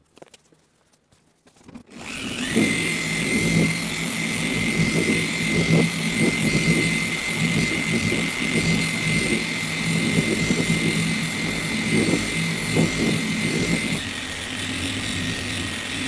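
Electric machine polisher starting up about two seconds in and running steadily with a high motor whine, its pad working polish over paintwork on the second polishing pass. Near the end the whine drops slightly in pitch.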